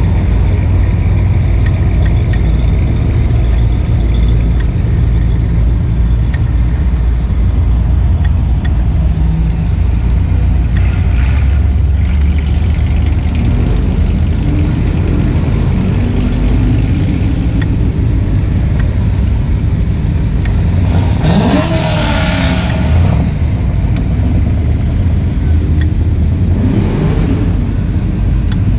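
Classic cars and hot rods driving slowly past one after another, their engines running at low revs. About three-quarters of the way through one accelerates, its engine rising in pitch, and another revs briefly near the end.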